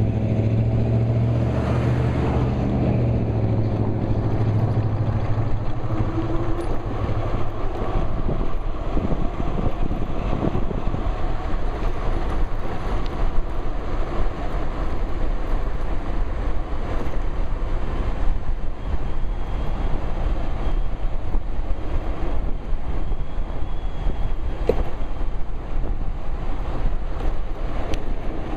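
Wind rushing over a pocket-carried microphone on a moving bike. At first a motor vehicle's engine hums low, then fades away over the first several seconds.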